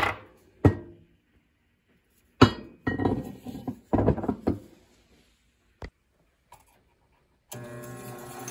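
Knocks and clinks of rusty steel pipe-wrench parts being handled and set down on a workbench. About seven and a half seconds in, a Central Machinery 8-inch bench grinder is switched on and its motor starts running up to speed, its hum growing louder.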